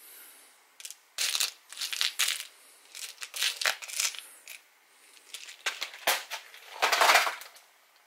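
Small metal screws clattering and clinking in a clear plastic compartment box as fingers sift through them, in a run of short rattling bursts. The loudest burst comes near the end.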